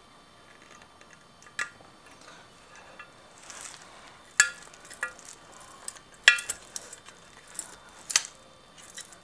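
Sharp metallic clicks and clinks of lockwire pliers and steel lock wire against the bolts of a two-piece brake rotor as the wire is gripped and twisted, several separate clinks with brief ringing, the loudest about six seconds in.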